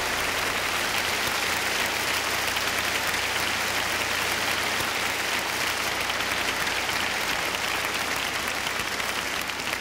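An audience applauding steadily after a gospel song.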